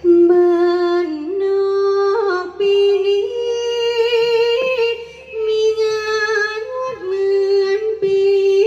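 A likay singer's voice drawing out long, melismatic notes that step slowly up and down with a slight waver, in a sweet, ringing tone.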